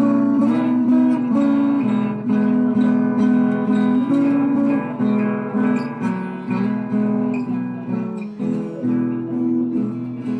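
Acoustic guitar playing an instrumental passage of a sertanejo-style song, picked and strummed melody notes with no singing.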